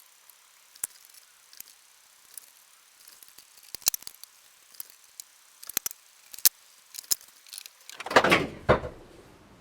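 Scattered sharp clicks and taps of tools and metal parts being handled while taking apart a 1942 Tauco/Delta bandsaw's gearbox, then a louder rough scrape lasting under a second near the end.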